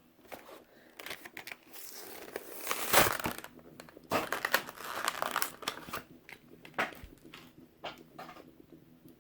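Plastic packaging of a 1/64 diecast car crinkling and crackling as it is handled and opened by hand, in irregular bursts with scattered clicks, loudest about three seconds in.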